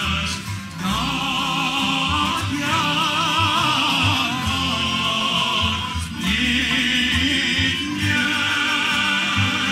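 A male soloist sings a Cape Malay Nederlands song with heavy vibrato and ornamented phrases of about two seconds each, accompanied by acoustic guitars and cello keeping a steady beat.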